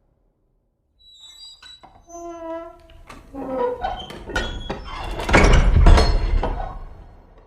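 Horror sound effect: high squeaks and a held creaking tone, then clicks and pitched cries that build to a loud rumbling burst about five to six seconds in and die away.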